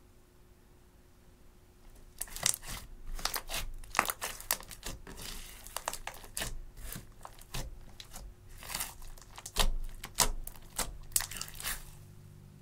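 Clear slime mixed with glitter and makeup being pressed, folded and stretched by hand, giving a dense run of sharp crackles and pops that starts about two seconds in and stops near the end.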